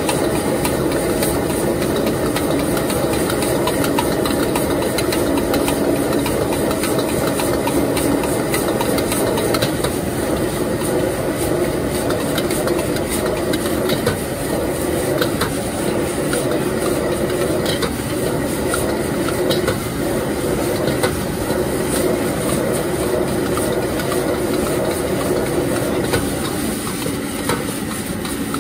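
Steady rush of a gas wok burner under a wok of frying rice noodles, with a metal ladle scraping and clinking against the wok as the noodles are tossed. The burner's rush drops away near the end as the flame is turned down.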